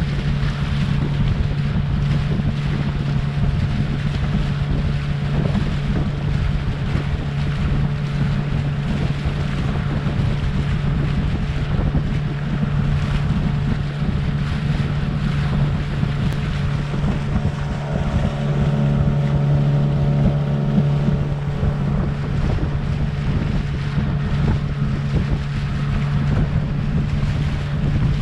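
Boat motor running steadily under way, a constant low hum with wind buffeting the microphone; it grows slightly louder about two-thirds of the way through.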